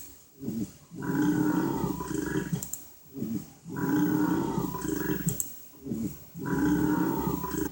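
A person burping loudly: three long, deep burps, each over a second, at an even spacing and much alike.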